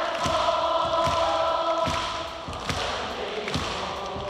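Arena audience singing a Cantopop ballad together, the band turned down so that mostly their voices carry. A steady thumping beat runs under them, about one beat every 0.8 s. The sung notes hold for the first two seconds or so, then thin out.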